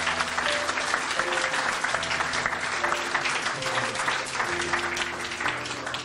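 Audience applauding, a dense patter of many hands clapping, with soft background music of held notes underneath.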